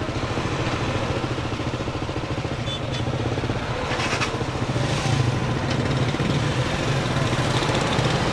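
An engine running steadily with an even low throb, a little louder about five seconds in.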